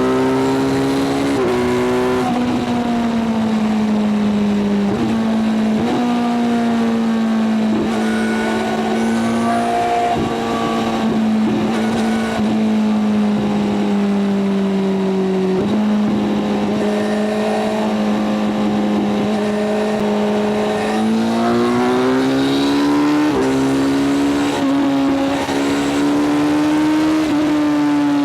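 Kawasaki Z900's inline-four engine running at highway cruising speed under steady throttle. The note dips briefly several times and climbs about three quarters of the way through as the bike accelerates.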